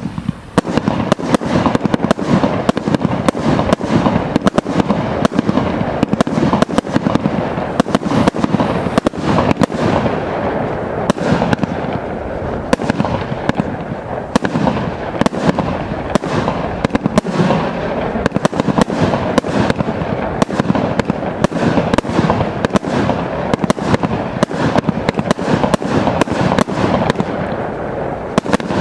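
Absolute Fireworks Big Bad Boss, a 110-shot three-cake compound firework barrage, firing a rapid, unbroken string of shots, several a second.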